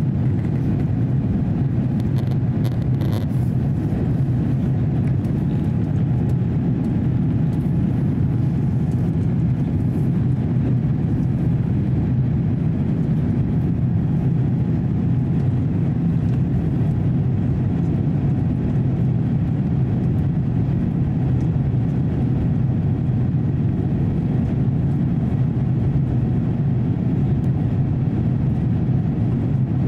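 Steady low roar of an Airbus A350-900's Rolls-Royce Trent XWB engines and rushing air, heard inside the cabin in flight shortly after takeoff.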